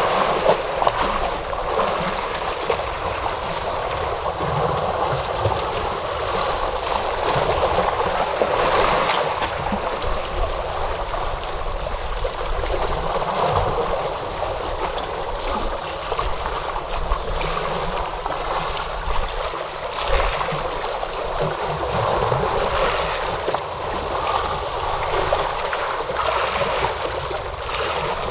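Ocean surf: a continuous rush of breaking and washing waves that swells and eases gently every few seconds.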